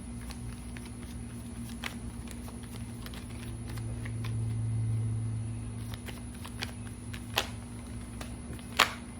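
Tarot cards being handled and laid down: a few sharp snaps, the loudest two near the end, over a low hum that swells midway.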